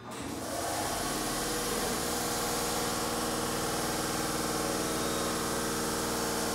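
An Osaka Metro 30000-series subway train standing at the platform, its onboard machinery running: a steady hiss that starts suddenly, with a low, even hum joining over the first couple of seconds.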